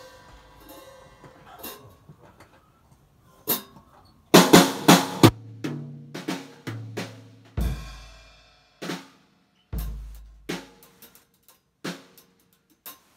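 Basix acoustic drum kit being played: a few light taps, then a quick run of snare and tom hits about four seconds in with the toms ringing on, followed by spaced single hits with deep bass drum strokes underneath.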